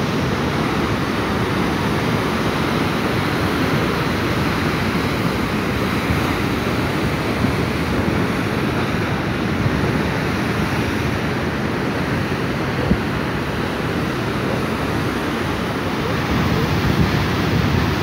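Ocean surf: a steady wash of rough, foaming sea, swelling a little near the end as a wave breaks.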